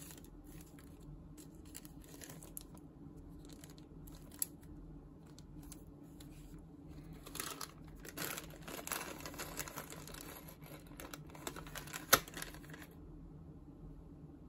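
Clear plastic parts bags crinkling and rustling as they are handled, with scattered small clicks. The crinkling grows denser past the middle, with one sharp click near the end.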